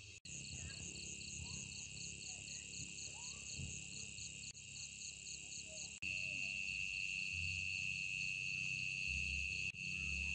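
Crickets and other night insects trilling steadily, with a high pulsing trill about four times a second; the chorus turns louder and steadier about six seconds in.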